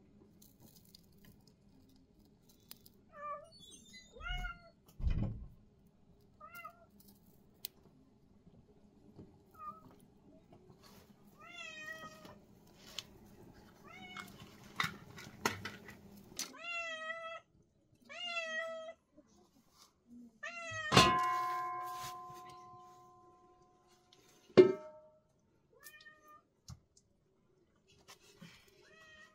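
A cat meowing repeatedly in short rising-and-falling calls. About two-thirds of the way through, a loud metallic clang rings on for a couple of seconds, followed by a second, sharper metal clink.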